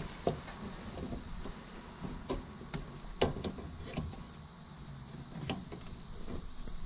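Scattered small clicks and knocks from hands squeezing and tugging at a plastic quick-connect fuel line fitting on a car's fuel pump assembly, which has not yet let go, over a steady high hiss.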